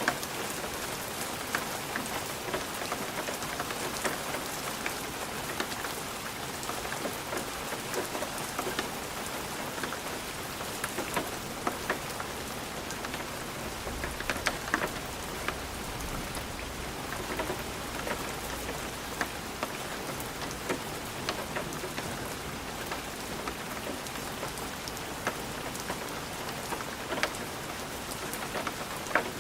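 Light rain falling steadily on a window: a continuous hiss of rain with many small scattered taps of drops striking the glass.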